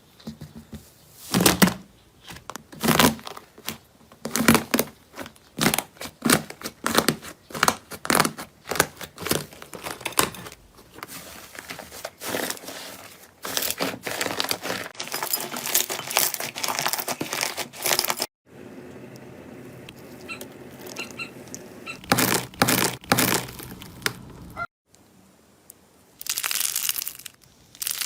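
Hands squishing, poking and stretching slime in several short clips: crisp crackling, crinkling pops and tearing sounds. These come as a rapid run of separate strokes, then a denser crackle, with abrupt cuts between clips.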